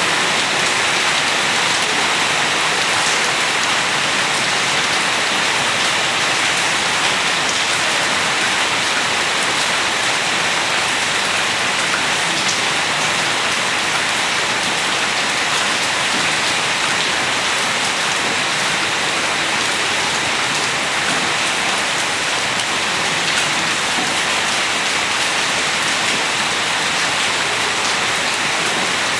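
Steady rain falling on hard surfaces outdoors, an even hiss with faint scattered drop ticks.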